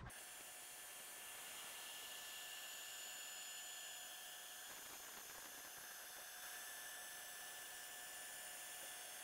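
CNC milling machine spindle running at high speed with a small end mill over an aluminium plate: a steady high whine over an even hiss.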